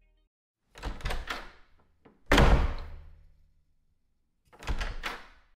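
Three short clusters of knocks and thuds spread over a few seconds, the middle one the loudest.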